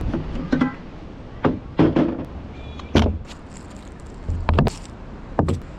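A series of short knocks and thumps, about eight in all, from gear being handled and set down.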